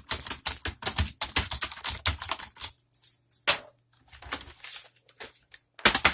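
Typing on a Bluetooth membrane keyboard to test it after reassembly: quick runs of soft key clicks several times a second, thinning out in the middle and picking up again near the end.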